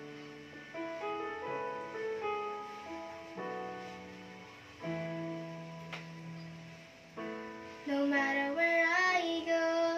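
Slow instrumental backing track playing the introduction of a ballad, held keyboard notes stepping from chord to chord. About eight seconds in, a young girl's solo voice comes in singing over it.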